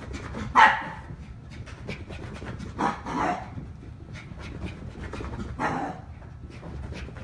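Two small dogs, a toy poodle and a miniature dachshund puppy, playing chase: three sharp barks, about a second in, around three seconds and near six seconds, with panting and quick small clicks of scampering between them.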